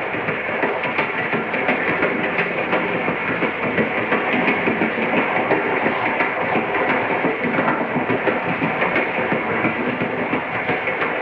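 Train in motion: a steady rumble with dense, continuous rattling and clattering.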